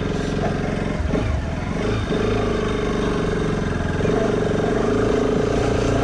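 Motorcycle engine running steadily as the bike is ridden along a road.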